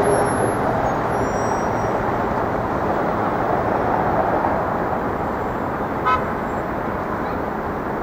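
Steady city street traffic noise, with one brief horn-like beep about six seconds in.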